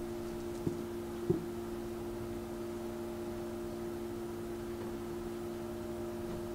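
Room tone: a steady low hum, with two soft taps a little under and a little over a second in.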